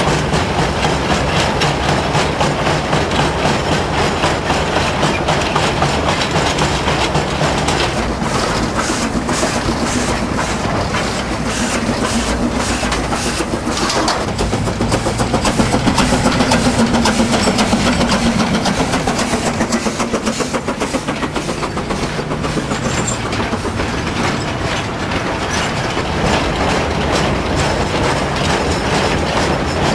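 Narrow-gauge clay wagons rattling and clattering along the track while riding on board, wheels clicking rapidly over the rail joints. About halfway the sound swells for a few seconds with a hum that rises and falls as a train of loaded wagons passes alongside.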